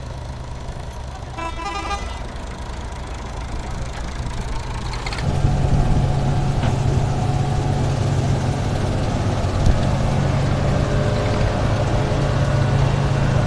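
Engine of harvesting machinery running steadily, growing louder about five seconds in. A brief toot sounds about a second and a half in.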